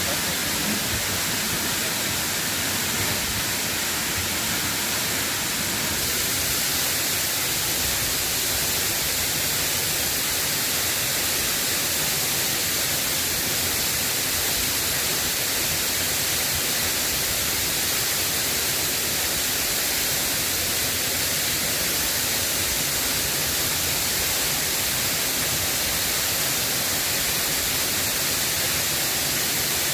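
Steady hiss of rain falling, an even wash of noise with no breaks.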